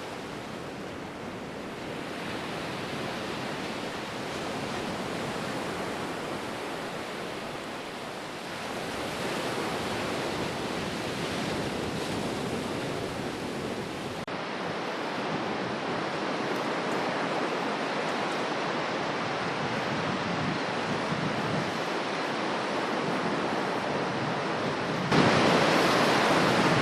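Storm noise: a steady rushing of water and wind. It shifts slightly a few times and grows louder near the end.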